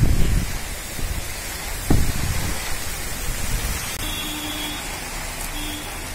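Heavy rain pouring steadily, with strong gusts of wind rumbling on the microphone at the start and again about two seconds in, easing off later.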